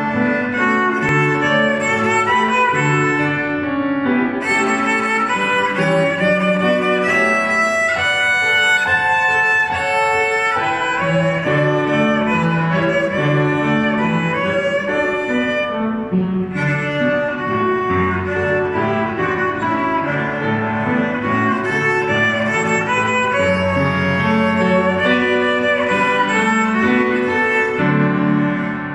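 A young beginner bowing a small violin through a simple tune, one note after another, over a lower accompaniment whose bass notes sit below the violin's range.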